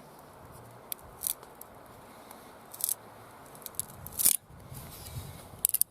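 A hazel stick being split lengthwise, its fibres cracking and tearing in a series of sharp crackles. The loudest comes about four seconds in, and a quick cluster follows near the end.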